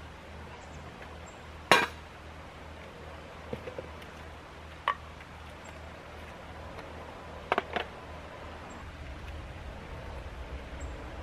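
Camp cookware being handled on pavement: a sharp metal clank about two seconds in, then a few lighter clinks and a quick double clink past the middle.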